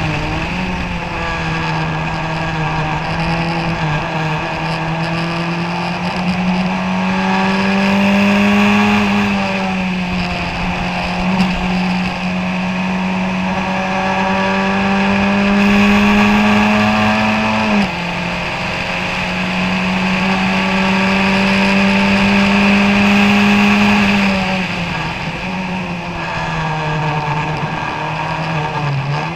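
Onboard sound of a 1991 Kookaburra Formula Ford 1600's Ford Kent four-cylinder engine at racing speed. The engine note climbs and dips with the throttle, drops sharply once about eighteen seconds in at an upshift, and falls away near the end as the driver lifts for a corner before picking up again.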